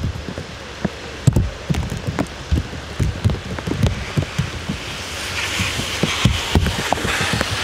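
Steady rain with large drops tapping irregularly close by. From about five seconds in, the hiss of a car's tyres on the wet road grows as it approaches.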